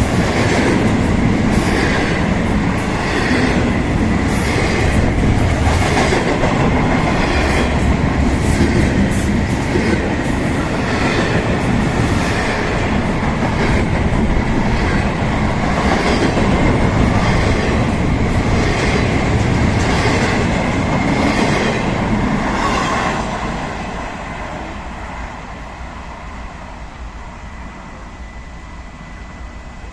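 Ferromex freight train cars rolling past, their wheels clicking over the rail joints in a steady rhythm over a loud rumble. About 23 seconds in the sound falls away as the train moves off.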